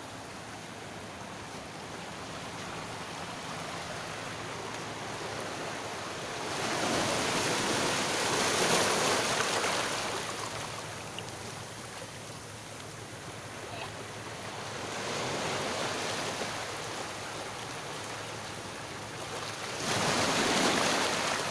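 Small waves washing in over a rocky, stony shore, the surf rushing and fading, with three swells: loudest about seven seconds in and again near the end.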